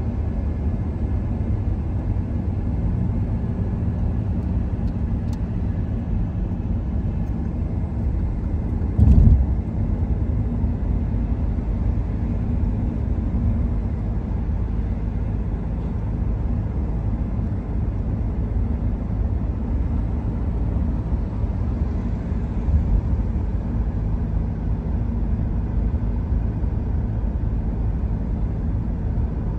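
Steady low road and engine rumble inside a car cabin as the car cruises along a highway. There is a short loud thump about nine seconds in and a smaller one a little past halfway.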